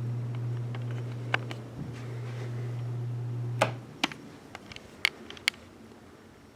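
Quorum Capri ceiling fan motor giving a steady low hum, then a sharp click a little past halfway as it is switched off, and the hum stops at once. A few lighter clicks follow.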